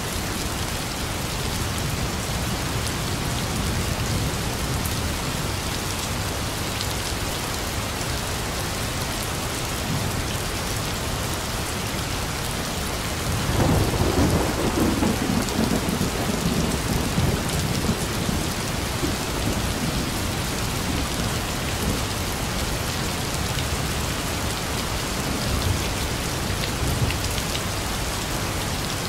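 Heavy rain falling steadily, with a roll of thunder that breaks out about halfway through and rumbles away over several seconds.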